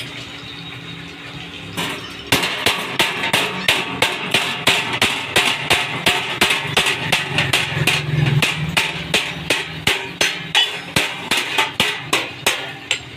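Hammer striking metal in a steady run of blows, about three a second, starting about two seconds in and stopping near the end, over a steady low hum.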